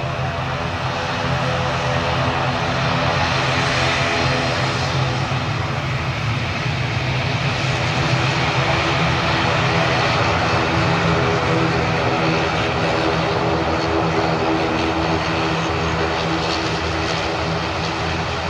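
Airliner engines running steadily and loudly: a dense rushing noise with steady droning tones underneath, swelling slightly in the first couple of seconds.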